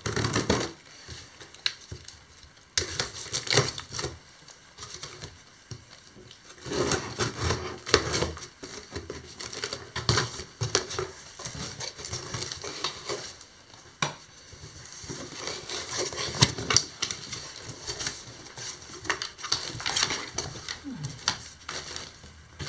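Cardboard parcel being opened: scissors scraping along the packing tape, then the cardboard flaps rustling and creaking as they are pulled open. A small dog's paws scratch and scrabble on the cardboard as it pushes in and climbs into the box. The sounds come in irregular bursts with quieter pauses between.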